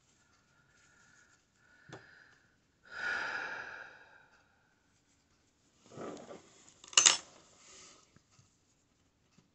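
A person's heavy breathing, a few breaths with the longest about three seconds in. A single sharp click near seven seconds is the loudest sound.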